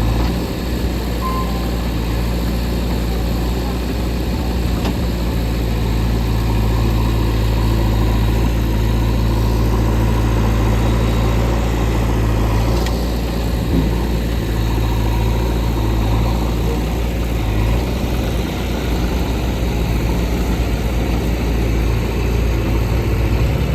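Heavy diesel engine running steadily at idle, a deep even hum with no revving.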